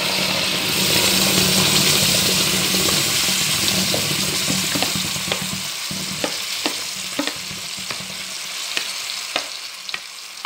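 Ground ripe jackfruit pulp sizzling and spluttering as it lands in hot ghee, the water in the pulp frying off in the fat. The sizzle starts loud and slowly fades, and over the second half a wooden spatula gives a series of sharp taps and scrapes against the bowl and pan.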